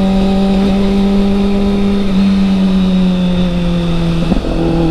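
2007 Kawasaki ZX-6R's inline-four engine running at fairly steady revs while riding, exhaling through an MJS Performance header with the catalytic converter deleted, so the tone is much deeper and not raspy. The engine note sags slightly, then drops and changes about four seconds in.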